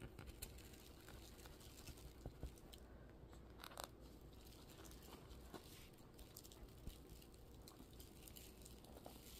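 Near silence: faint rustling and a few light clicks from a glitter-covered graduation cap being shaken and handled.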